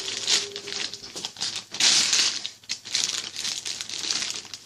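A parcel's packaging being handled and opened: continuous crinkling and rustling, loudest about two seconds in.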